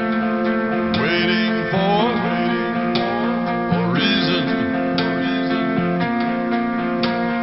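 Rock ballad with strummed acoustic guitar over sustained chords.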